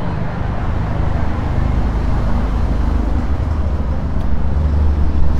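City street traffic with a vehicle engine running close by, its low hum swelling about four seconds in.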